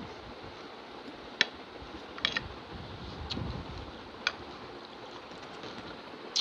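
Metal spoon clinking and scraping against a ceramic plate while breaking into a dahi puri: about five short, sharp clicks, two of them close together, over a steady background hiss.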